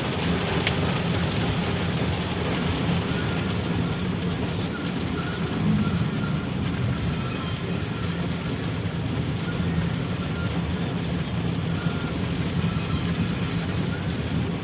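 Steady road noise of vehicles on the move: engines running and tyres on the road, with no horn standing out.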